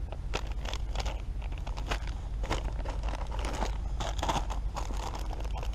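Plastic and foil ration-pack packaging crinkling and rustling as it is handled: a quick, irregular run of crackles and crunches.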